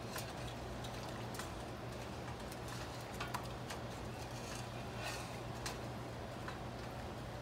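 A spoon stirring sugar into a pot of hot tea, clinking irregularly against the pot every half second to a second or so. A steady low hum runs underneath.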